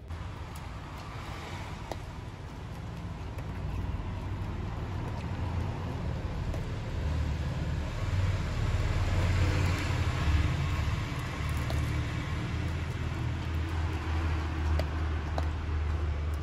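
Low rumble of road traffic, growing louder over the first several seconds and staying up.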